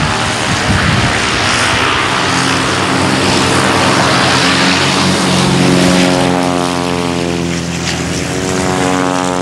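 Piston engines and propellers of several small aerobatic biplanes at full power on a formation takeoff run: a loud, steady propeller drone. Near the end the pitch falls as one plane passes close by.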